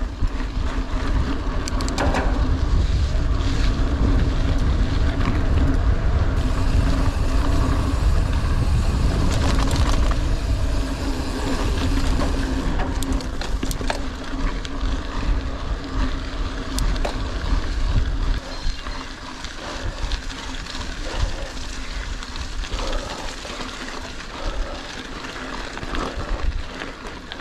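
Mountain bike being ridden uphill on a wet trail: heavy wind rumble on the camera's microphone over tyre and drivetrain noise, with scattered clicks and knocks. The rumble eases somewhat about two-thirds of the way through.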